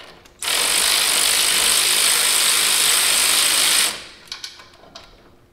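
Cordless ratchet running steadily for about three and a half seconds, spinning off the last top nut holding the front shock and coil spring assembly. It starts about half a second in and cuts off suddenly.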